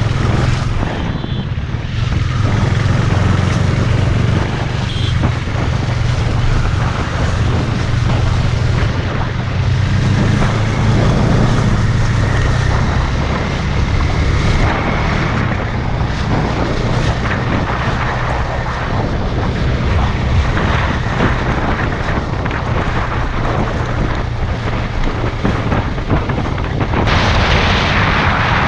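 Motorcycle engine running steadily while riding, with heavy wind noise buffeting the microphone.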